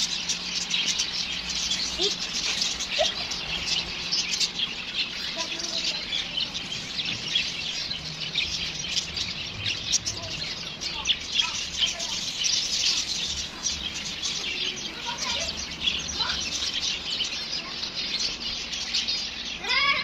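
A flock of small aviary birds chirping and twittering continuously, many short high calls overlapping.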